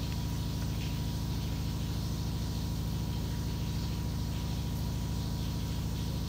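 A steady, unbroken low hum with a thin constant high tone above it.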